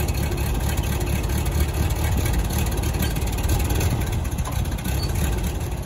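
Ford 8N tractor's four-cylinder flathead engine running steadily at low speed.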